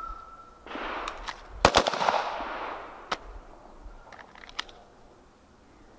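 A string of pistol shots fired one-handed from the hip, the loudest about a second and a half in, with fainter shots spread over the next three seconds.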